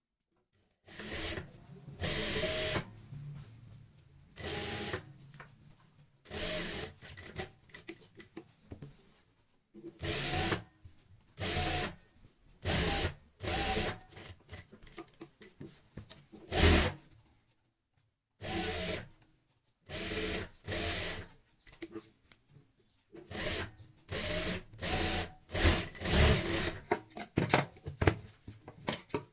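Juki industrial sewing machine stitching in many short runs, each lasting a second or less up to about two seconds, stopping and starting again with brief pauses between. Paper pattern and fabric rustle as they are guided under the foot by hand.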